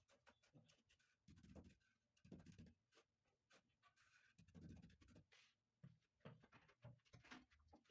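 Faint scraping and scratching of a mason's hands and trowel working mortar around a marble stair tread, with a few soft dull knocks.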